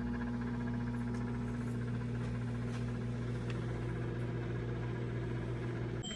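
Microwave oven running with a steady electrical hum from its high-voltage transformer and magnetron, cutting off just before the end. It is heating again after a blown fuse was replaced.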